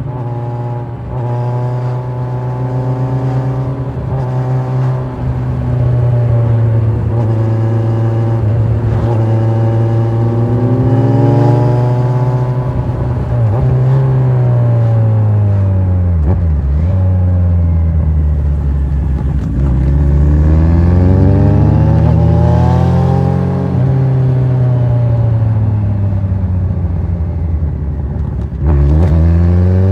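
Kawasaki Z1000 inline-four motorcycle engine under way, pitch held steady, then falling as the bike slows and rising again as it accelerates, several times over. Near the end the throttle opens suddenly and the engine gets louder, with wind noise underneath throughout.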